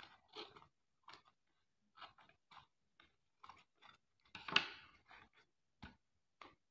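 Scissors snipping paper in a run of short cuts, trimming the extra paper glued over a plastic bottle's mouth, with one louder crunch about four and a half seconds in.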